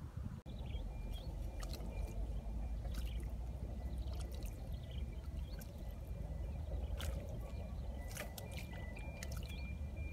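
Muddy water trickling and gurgling in a hole dug in wet mud, with scattered small drips and splashes.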